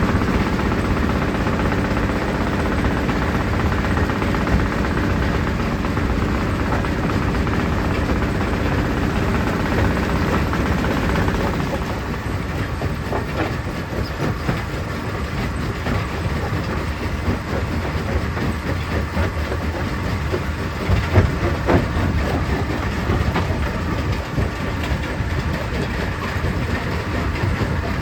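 Stone crusher plant running, with a steady din of rattling, clattering rock and machinery. It drops a little in level partway through, and there are a few sharper knocks about three quarters of the way in.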